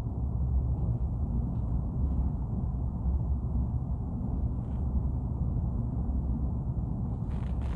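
Steady low rumbling noise from an ambient noise recording, even and unbroken, with most of its weight in the deep bass. There is a faint brief hiss near the end.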